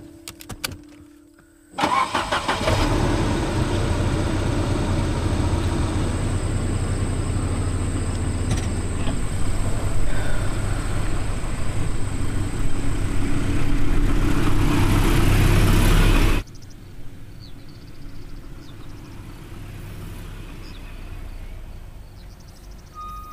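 A car engine starts suddenly about two seconds in and runs loud, growing louder as the accelerator is pressed. It cuts off abruptly about sixteen seconds in, leaving only a faint quiet background.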